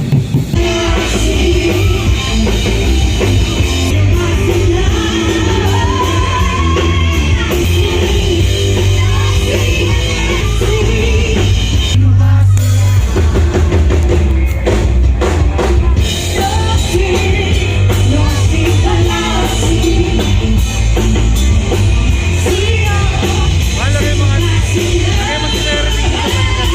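Rock-style song with a singer over drum kit, bass and guitar, played loud with a steady beat.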